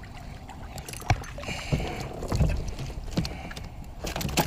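A hooked bass splashing at the water's surface beside a kayak as it is netted, with scattered knocks and clatter against the kayak, the busiest near the end.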